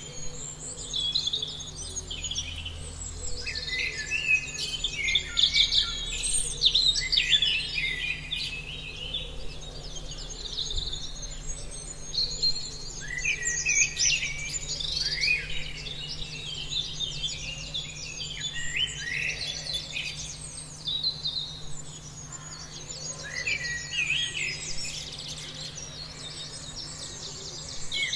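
Many birds singing and calling at once, a dense chorus of short chirps and trills, over a faint steady low hum.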